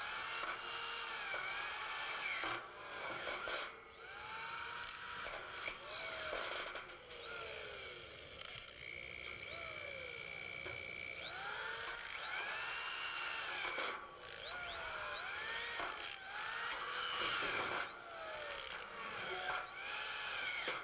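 Corded electric drill driving frame screws through flat brackets into steel truss tubing, its motor whining up in pitch and back down again and again as the trigger is squeezed and eased, with one longer steady run about nine seconds in.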